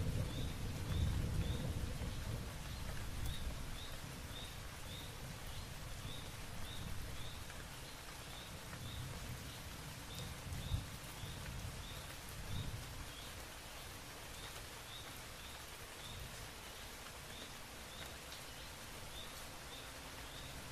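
Steady rain hissing, with thunder rumbling and dying away over the first few seconds. A short high chirp repeats about twice a second, with pauses.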